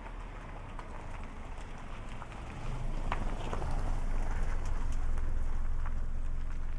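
A car driving slowly past close by, its engine and tyre rumble swelling about two and a half seconds in and staying loud through the rest. Footsteps tick on the frosty pavement throughout.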